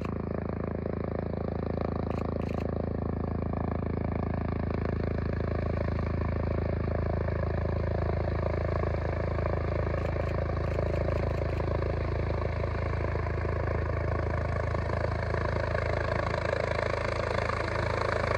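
Air ambulance helicopter approaching to land: a steady rotor and turbine sound that grows gradually louder as it comes closer.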